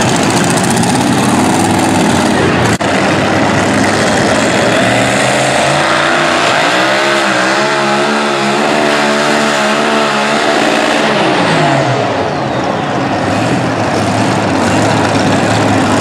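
Supercharged super modified pulling-truck engines idling loudly. In the middle, one engine's pitch rises, wavers up and down for a few seconds, then falls back.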